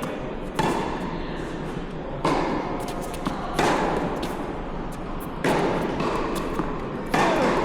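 Tennis rally: a ball struck back and forth by racquets, five sharp hits about every one and a half to two seconds with fainter ball bounces between, each hit ringing on with a long echo as in an indoor hall.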